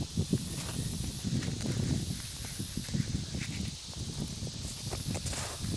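A hand scraping and crumbling dry dirt and clods over a small hole, with many short, soft knocks and rustles over a steady hiss.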